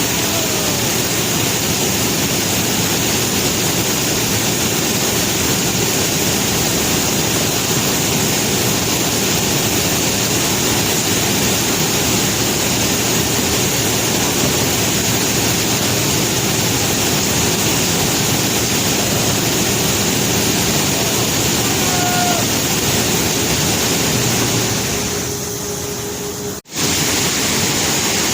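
Conveyor belt carrying rock: a loud, steady rushing noise of rock riding and tumbling on the belt. Near the end it eases off, cuts out for an instant, then resumes.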